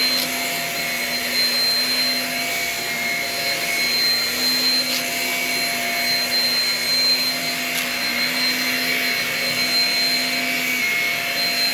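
Shark Rocket stick vacuum running steadily, with a high-pitched motor whine over a lower hum that shifts slightly in pitch. Two faint clicks come through it.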